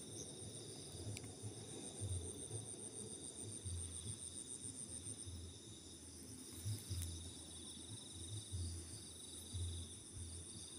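Crickets chirping at night: a steady high-pitched trilling, one voice pulsing in a rapid even rhythm that stops about five seconds in. Soft irregular low thumps sound underneath.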